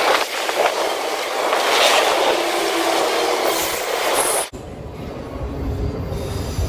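Double-stack intermodal container train rolling past: a bright rushing noise of wheels on rail, with a steady tone coming in about halfway. About four and a half seconds in, the sound cuts abruptly to an autorack freight train rolling past with a deeper rumble and faint high-pitched wheel squeal.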